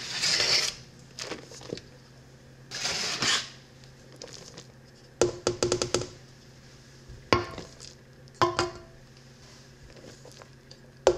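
Flour being scooped and poured from a plastic measuring cup into a stainless-steel mixer bowl: two soft shushing pours, the first right at the start and the second about three seconds in. From about five seconds on come clusters of quick taps as the cup knocks against the bowl, several with a brief metallic ring.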